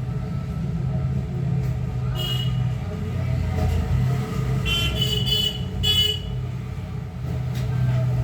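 A steady low rumble with short, pitched horn-like toots about two seconds in and again around five to six seconds.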